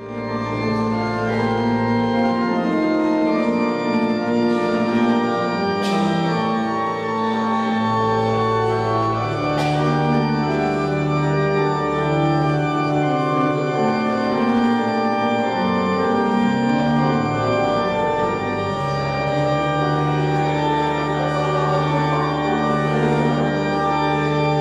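Church organ playing slow, sustained chords over a deep held bass, the harmony shifting every few seconds.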